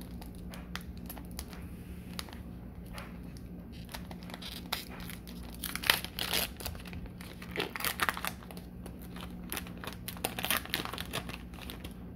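Foil wrapper of a Pokémon trading-card booster pack being torn open and crinkled by hand: a run of small crackles, in louder, denser clusters from about four to eleven seconds in.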